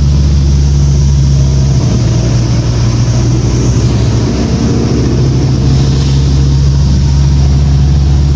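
Cummins ISL diesel engine of a 2006 New Flyer D40LF transit bus running under way with a steady low drone and road noise, heard from inside the bus. The engine note briefly drops about four seconds in.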